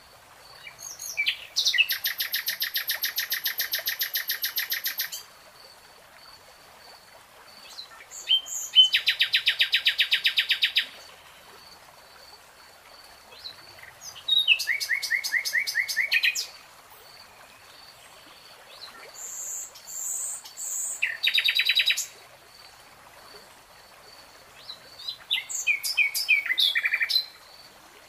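A songbird singing a series of rapid, fast-pulsed trills, five bouts of about two to three seconds each with pauses of a few seconds between them.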